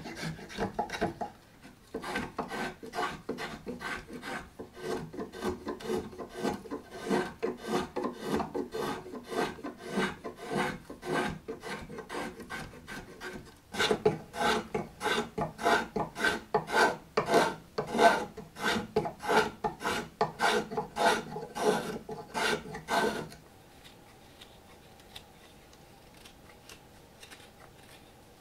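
Green walnut wood being shaved with a two-handled blade along a ladle handle. The strokes are quick and repeated, about two or three a second. They stop about 23 seconds in, and only faint knife paring follows.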